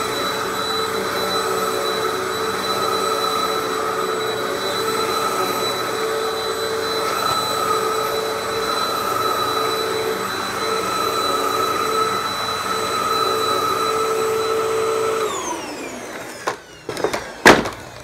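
Hoover WindTunnel upright vacuum running steadily with its brush roll driven by a freshly replaced belt, now spinning at full speed. About 15 seconds in it is switched off and its motor winds down, falling in pitch, followed by a few sharp knocks, one of them loud.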